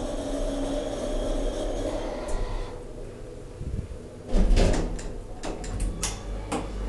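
Hydraulic passenger elevator: a steady hum stops about three seconds in, then a heavy thump is followed by a run of sharp clicks and clunks from the door mechanism.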